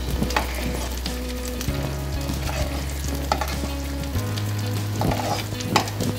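A thick masala gravy sizzling in a hot non-stick frying pan while a metal spoon stirs and scrapes through it, with a few sharper scrapes against the pan.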